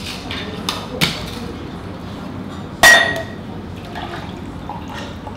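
Stainless-steel shaker tins after a dry shake: a few light metal clicks, then one sharp, ringing metal clank about three seconds in as the tins are knocked apart. After that comes the quieter sound of the frothy egg-white mix being poured from one tin into the other.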